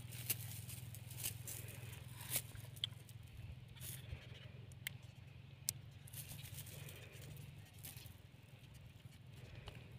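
Faint handling of a cast net: its metal chain weights clinking and the mesh rustling as small fish are picked out by hand, giving a scatter of sharp clicks over a steady low hum.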